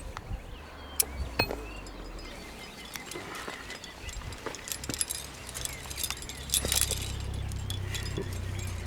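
Metal climbing hardware, carabiners and quickdraws on a harness, clinking and jangling in scattered sharp clicks as a climber moves. A low rumble joins about five and a half seconds in.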